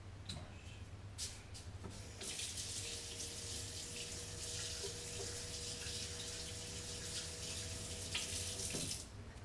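Kitchen sink tap running in a steady rush for about seven seconds, then shut off abruptly, with a faint steady tone under the water noise.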